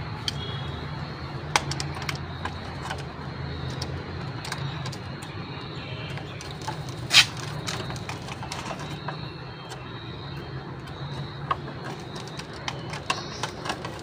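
Scattered clicks and light knocks of wires and a plastic magnetic contactor being handled and fitted during electrical wiring, with one sharper click about seven seconds in, over a steady low hum.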